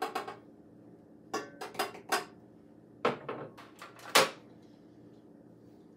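Clinks and knocks of kitchenware against a stainless steel stand-mixer bowl while powdered sugar is added: about eight separate knocks over three seconds, the loudest about four seconds in.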